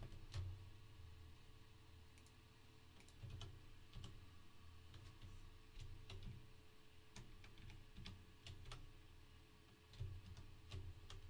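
Faint computer keyboard typing: short, irregular key clicks over a low steady hum.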